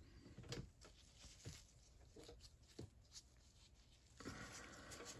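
Faint scattered clicks and light taps of a 3/8-inch flex-head ratchet being handled as its head is opened for a teardown, with a short scraping rustle about four seconds in.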